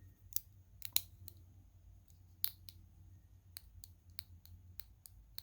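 Sinn 105 St Sa UTC's bracelet clasp clicking as it is worked, about a dozen small, sharp, irregularly spaced clicks. The owner takes the noise, like the bezel's clicking, as a sign of poor build quality.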